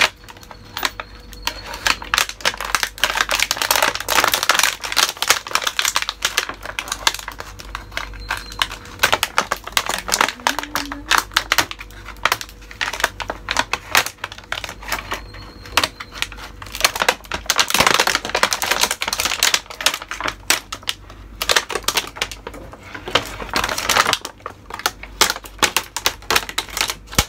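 Clear plastic wrapping crinkling and crackling as it is handled, pulled and torn off a set of kitchen knives, in many quick crackles, with louder spells about four seconds in, around eighteen seconds and around twenty-four seconds.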